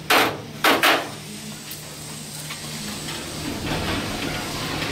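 A 500-pound steel slide-out steak grill pulled out along stainless-steel tracks on a trailer smoker: two loud metal scrapes in the first second, then a steady rolling rumble as it travels out.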